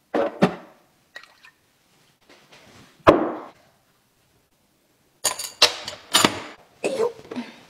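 Kitchen utensils and containers being handled on a counter. There is a short scrape at the start, one sharp knock about three seconds in, then a run of clattering knocks and rattles over the last two seconds.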